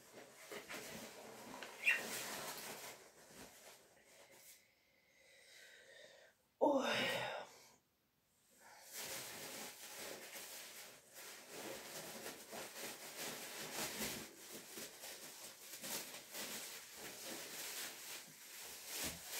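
Plastic shopping bag and packaging rustling and crinkling as a hand rummages through it. Around a third of the way in comes one short, louder vocal sigh, then a brief pause before the rustling resumes.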